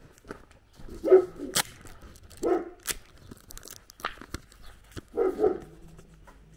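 A dog barking: three loud barks spread over a few seconds, the last one doubled. Footsteps crunch on a gravel lane between the barks.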